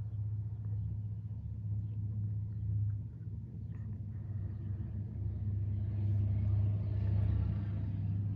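Hampton Bay Carousel 52-inch ceiling fan, made by CEI, running: a steady low motor hum with the rush of air off the blades. The air rush swells about six seconds in.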